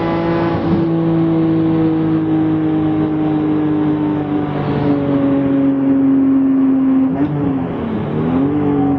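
BMW E46 M3's S54 straight-six with a Gruppe M titanium exhaust, running with a steady, slowly sagging pitch; about seven and a half seconds in, the revs dip sharply and climb back.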